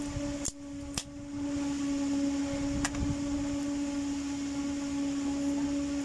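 A kitchen knife prying a freshly printed plastic part off a DIY 3D printer's acrylic bed, with a few sharp clicks, about half a second in, at one second and near three seconds, as the part comes loose. A steady low hum runs underneath.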